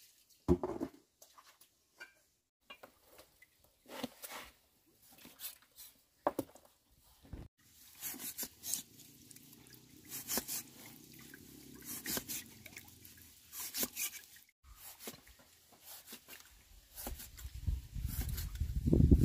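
Water splashing as it is poured from a plastic basin onto concrete, then a cleaver slicing through pork fat and knocking on a wooden chopping board, several sharp knocks in the middle. A louder low rumble comes near the end.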